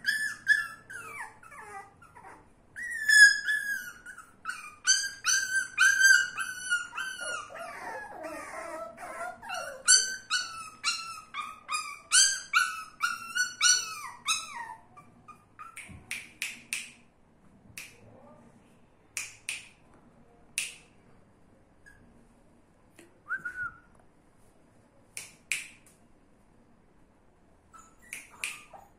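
Fox terrier puppies crying in high-pitched whimpers and whines. A quick run of falling cries fills the first half, then only short, scattered yips follow.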